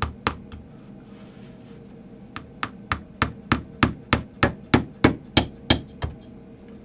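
Tack hammer tapping brads into an upholstered panel on a chair arm. Three light taps, a pause of nearly two seconds, then a steady run of about a dozen taps at roughly three a second.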